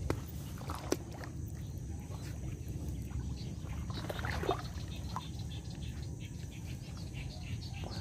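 Low, steady rumble of wind buffeting the microphone, with a few faint clicks and rustles.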